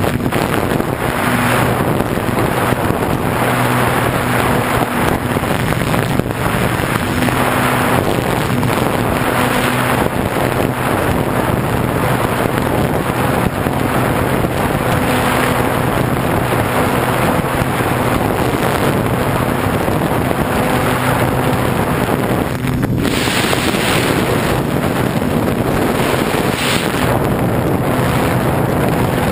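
Model airplane's motor and propeller running steadily in flight, heard from an onboard camera, with heavy wind rush over the bare microphone.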